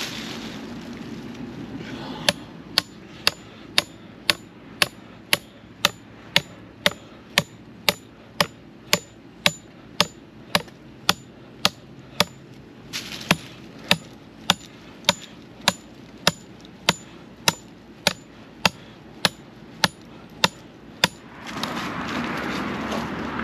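Vehicle turn signal ticking steadily, about two sharp clicks a second, over the low hum of the cab. The ticking stops near the end as louder road noise comes up.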